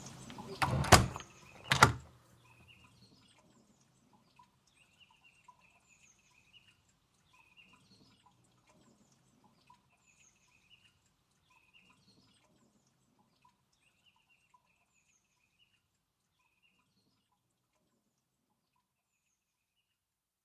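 A door knocks twice, loudly, about a second in and again just before two seconds, as it is opened and shut. Then faint birds chirp, dwindling over the next fifteen seconds or so.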